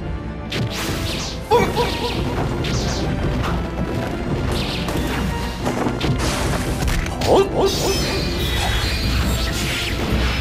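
Fight-scene sound effects over background music: a series of swishes and crashing hits. The loudest hits land about a second and a half in and again a little past seven seconds.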